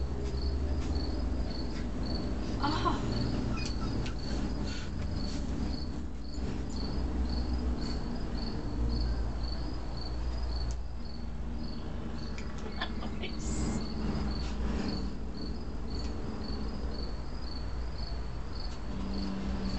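Cricket chirping steadily, short high chirps about two a second.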